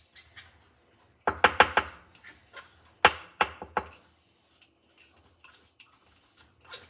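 Plastic spoon stirring a crumbly mix of cornstarch and conditioner in a small bowl, clicking and knocking against the bowl: a quick run of four loud knocks about a second in, three more near the middle, and lighter scrapes between.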